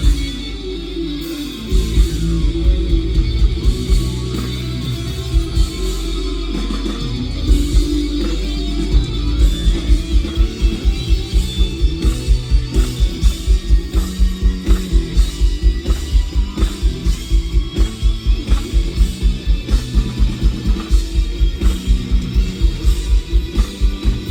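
Live rock band playing an instrumental passage, with guitar, bass and drums. About nine seconds in, a steady, fast kick-drum beat starts and drives on.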